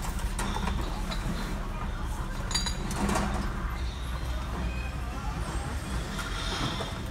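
Empty glass beer bottles clinking in a cardboard case as it is carried and set down on a counter, over a steady low rumble.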